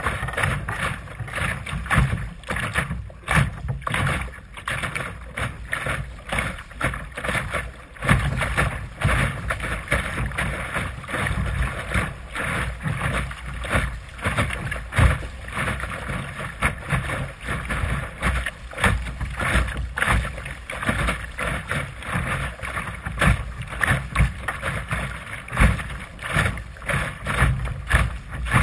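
Water splashing and slapping irregularly against the bow of a Sunfish sailing dinghy's fiberglass hull as it sails through chop.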